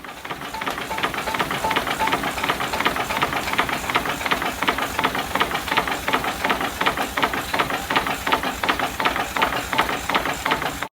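Model railway locomotive sound effect: a steady, rapid chugging rhythm of about five beats a second that fades in at the start and cuts off suddenly at the end.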